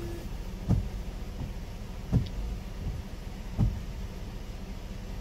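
Ford Flex windshield wipers sweeping back and forth over wet, washer-sprayed glass, with a thump about every second and a half (three times) as the blades turn at the ends of their strokes. A steady air-conditioning hum fills the cabin underneath.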